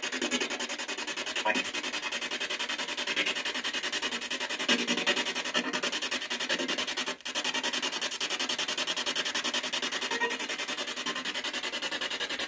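Handheld spirit box sweeping through radio stations: a fast, evenly chopped hiss of static with faint fragments of radio sound here and there, and a brief dropout about seven seconds in.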